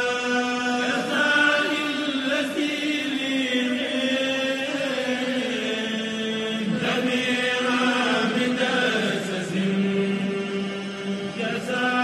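A single voice chanting an Islamic prayer chant, holding long notes that step up and down in pitch.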